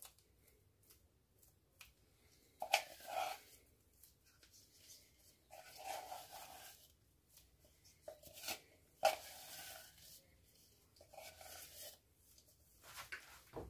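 A few soft, brief scrapes and rubs as a gloved hand works a thick seasoning paste out of a glass jar onto raw chicken drumsticks and vegetables in a mixing bowl. There are about five short bursts, with pauses in between.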